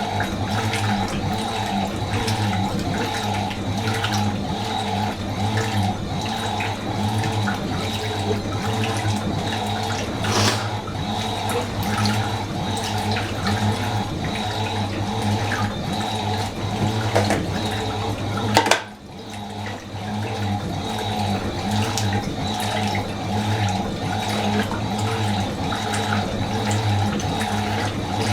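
Fisher & Paykel MW512 washing machine running with water, a steady motor hum under an even, pulsing churn. A sharp click comes about two-thirds of the way through, followed by a brief drop in the sound before it carries on.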